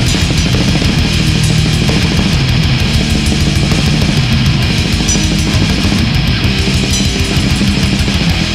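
Doom/death metal playing loud: heavily distorted electric guitars on a low riff with drums.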